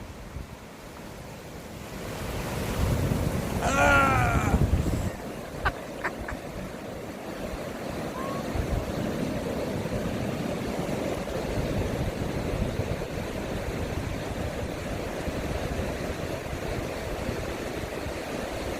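Sea surf breaking and washing up a beach, a steady rushing that swells about three to five seconds in, with wind on the microphone. A short high cry rings out about four seconds in.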